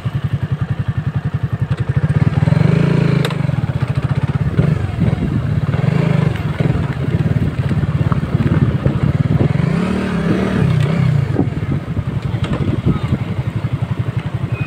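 Suzuki motorcycle engine running at low speed on a dirt track, heard close from the rider's seat, with a fast low pulsing beat; its revs swell about two seconds in and again around ten seconds in.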